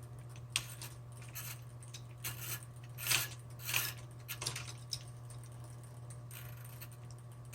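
Light clicks, scrapes and rattles of hands working the ribbon spool and pulling the ribbon through on a Smith Corona Electra 120 typewriter, a handful of separate small knocks, the loudest about three seconds in, over a steady low hum.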